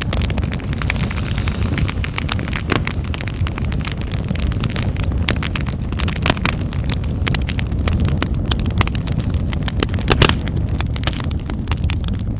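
Wood fire in a fireplace crackling, with many sharp pops and snaps over a steady low rumble of the flames; one louder pop about ten seconds in.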